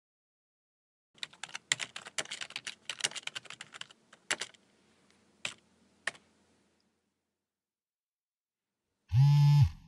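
Typing on a laptop keyboard: a quick run of keystrokes, then a few single key presses. About nine seconds in, a loud, buzzy electronic tone starts, the loudest sound here.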